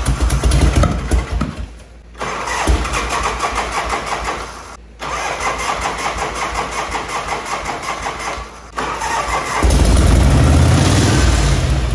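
1965 Harley-Davidson Panhead V-twin being cranked to start in several tries, with short breaks between them. The last try, near the end, is louder and steadier.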